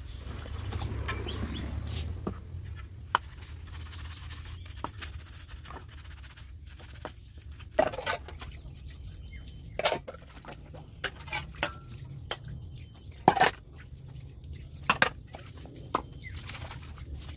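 Water poured and splashing out of a plastic bucket, then dishes rinsed under a garden hose into a plastic basin, with scattered clinks and knocks of plates and a metal pan against each other.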